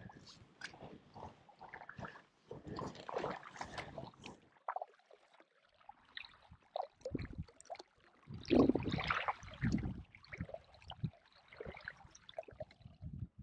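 Kayak paddle dipping and water splashing and gurgling against an inflatable kayak's hull in irregular strokes, with a louder splash about eight and a half seconds in.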